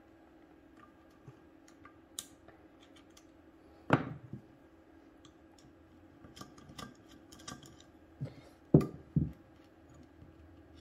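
Small metal clicks and taps of a screwdriver turning out screws and loose parts being handled on a Rochester 4GC carburetor, with a few sharper knocks against the workbench about four seconds in and twice near the end.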